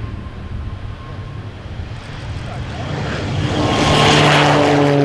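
Single-engine turboprop aircraft running on the ground: a steady low engine drone, then a propeller-and-turbine sound that swells from about two seconds in. It is loudest near the end, with its note falling slowly in pitch as an aircraft moves past.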